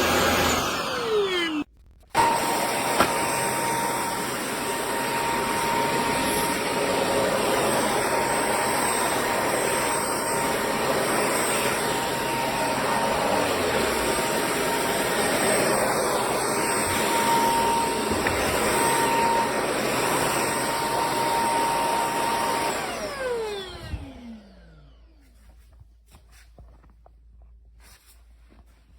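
Shark PowerDetect corded stick vacuum running steadily with a thin whine, then switched off about 23 seconds in, its motor winding down with a falling pitch. Only faint knocks and rubbing follow.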